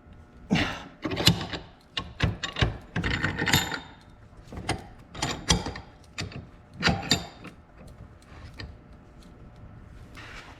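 Small metal parts and tools being handled: a string of sharp clicks and short rattles, some with a faint metallic ring, dying down after about seven seconds.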